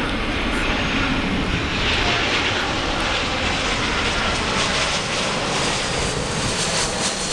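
Jet engines of a British Airways Airbus A320-family airliner on final approach with landing gear down, passing low overhead as a steady, loud jet noise. The hissing upper part is strongest about two seconds in.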